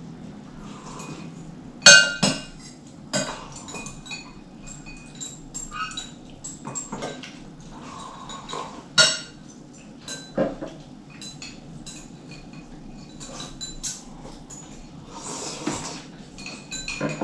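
Chopsticks and spoons clinking against ceramic bowls and plates as people eat at a table: scattered light clinks with short ringing, the sharpest about two seconds in and again around nine seconds.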